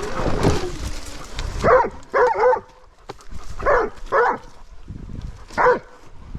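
A dog barking: about six short, high barks in quick clusters.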